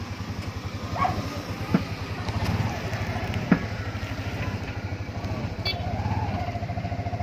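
TVS King auto-rickshaw's single-cylinder engine running under way, heard from the driver's seat as a steady rapid low pulse. Two sharp knocks come about two and three and a half seconds in, and a held higher tone starts near the end.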